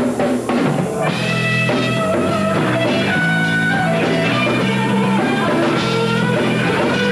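Live heavy metal band playing: distorted electric guitar over bass and drums. A few drum hits open it, and the band settles into a sustained riff about a second in.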